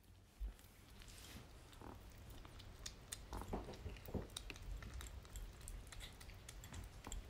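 A kitten eating soft weaning food from a bowl, heard close up: quick, irregular wet chewing and smacking clicks.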